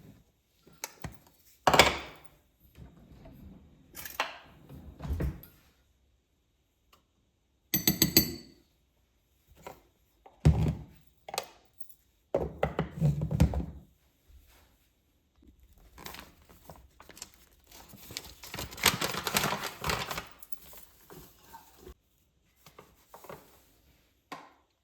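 Scattered knocks and thunks of kitchen handling, some sharp and some heavy and dull, with a longer stretch of rustling or scraping about two-thirds of the way through.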